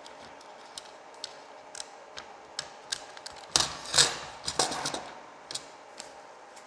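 Irregular small clicks and taps of plastic parts and fibre cable being handled, with a denser run of louder clicks about three and a half to five seconds in.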